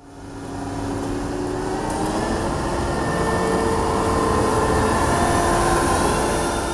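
New Holland combine harvester running: a steady mechanical drone with a few whining tones that drift slightly in pitch, fading in over the first second.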